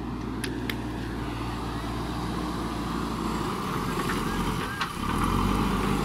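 JCB backhoe loader's diesel engine running steadily as the machine moves. The engine sound grows louder about five seconds in.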